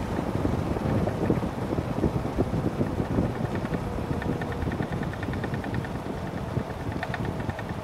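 Wind buffeting the microphone of a camera mounted on a moving motorcycle, with the motorcycle's engine running underneath as a low rumble.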